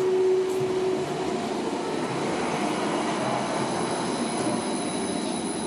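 Tram running on its rails: a steady rumble with a thin high whine above it, and a humming tone in the first second that fades out.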